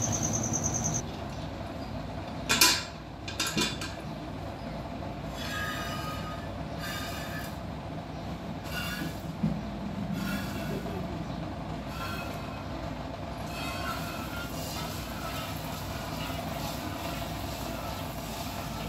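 Water buffalo being milked by hand into an empty steel bucket: jets of milk hiss and ring against the metal about once a second. Near the start the bucket clanks twice as it is handled.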